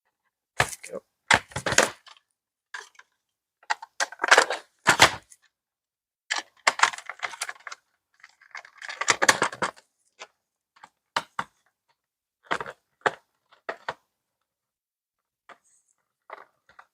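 Hard plastic clacks, snaps and short scraping rattles of a Nerf Rival Takedown blaster's shell and parts being handled, in irregular bursts with pauses between them.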